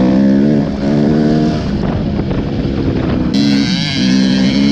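Suzuki RM-Z250 motocross bike's engine running at fairly steady revs while riding a dirt track, its pitch shifting up and down in small steps. About three seconds in, a cut brings a brighter, hissier engine sound.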